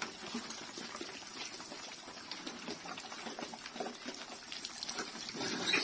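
A group of pigs eating wet feed from a trough: continuous slurping and chewing, many small wet clicks overlapping.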